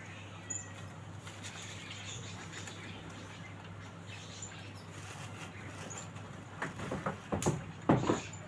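Outdoor yard ambience with a steady low hum and a few faint high bird chirps, then a cluster of rustles and knocks starting about two seconds before the end, the loudest of them near the very end.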